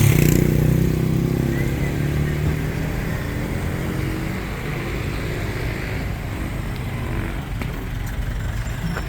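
Motorcycle engine running close by, loudest at the start and fading over the first couple of seconds, over a steady background of street traffic.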